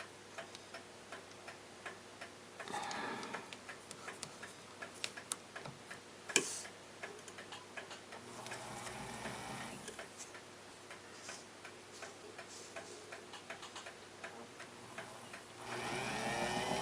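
Mechanical clock ticking faintly and steadily, about two ticks a second, with brief scratchy rubbing now and then. Near the end a small motor starts and spins up to a steady hum.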